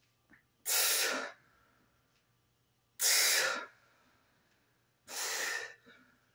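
A man's forceful exhalations from exertion, three sharp breaths about two seconds apart, one with each repetition of a resistance-band squat.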